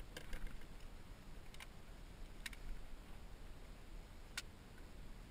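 A few short, sharp clicks and taps from fishing tackle being handled aboard a plastic kayak: one cluster at the start, then single clicks spaced about a second apart, over a faint low rumble.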